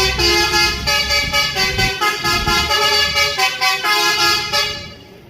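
A bus's basuri musical air horn playing a fast tune of changing multi-tone notes, loud, with the bus's engine rumbling underneath for the first couple of seconds. The tune stops shortly before the end.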